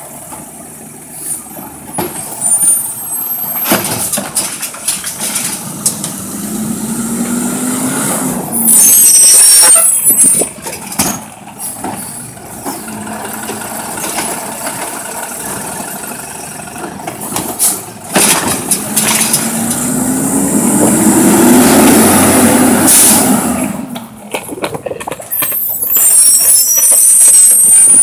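Natural-gas side-loader garbage truck working a curb stop. The engine revs up twice in long rising runs as the truck pulls ahead and the lifting arm works. There are loud air-brake hisses about nine seconds in and again near the end, with sharp clunks of the cart and arm against the hopper.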